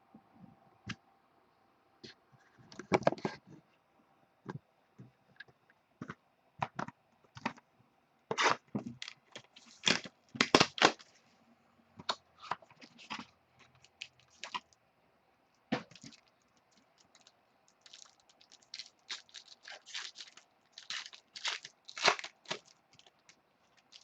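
A trading-card hobby box and its packs being opened and handled by hand: a string of short, sharp crackles and clicks from cardboard, wrapper and plastic, loudest about three seconds in, around ten to eleven seconds, and near the end.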